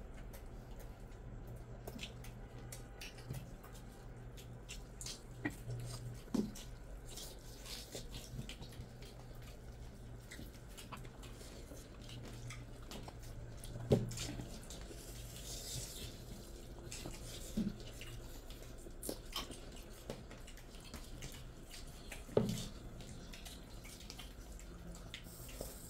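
Hand-eating sounds from rice and curry on metal plates: wet squishes of fingers mixing rice and gravy, small clicks of fingers against the plates, and mouth sounds of chewing, with a few louder brief smacks, over a steady low hum.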